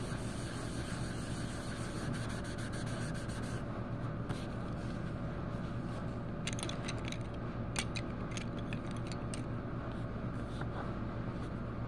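Steady low drone of a running truck engine, with a scatter of small sharp clicks and ticks around the middle.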